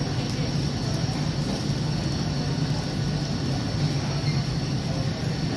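Steady supermarket background noise: an even low hum with a wash of hiss, no single event standing out.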